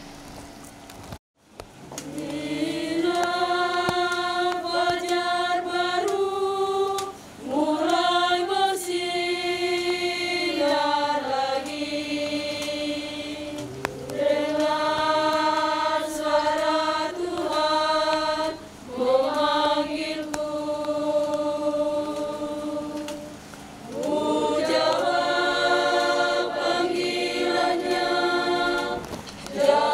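Women's choir singing in slow phrases of long held notes, with short breaks between phrases. It starts about two seconds in, after a brief silence.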